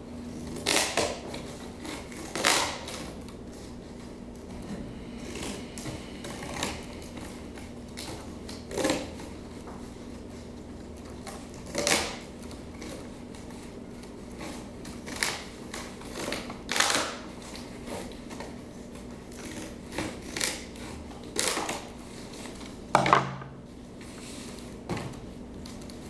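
Cutting strokes at irregular intervals, about a dozen short crisp cuts roughly every two seconds, with the loudest near the end. A faint steady hum runs underneath.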